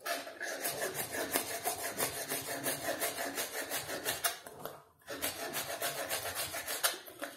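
Kitchen knife slicing small green peppers on a cutting board in quick, even strokes, several a second, pausing briefly a little past halfway.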